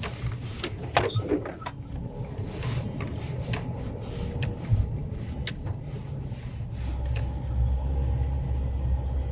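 Mitsubishi L200 pickup heard from inside the cabin while driving off-road: the engine runs with a steady low rumble while the body and loose items knock and rattle over rough ground. About seven seconds in, the engine gets louder and heavier.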